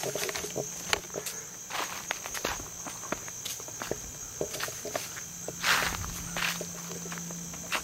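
Irregular footsteps and scrapes on creek-bed stones, with one louder scuff about six seconds in, over a steady high drone of insects.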